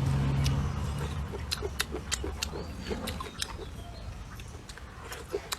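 Close-up eating sounds: a run of wet smacking and chewing clicks, irregular and many per second. A low vehicle rumble fades out about a second in.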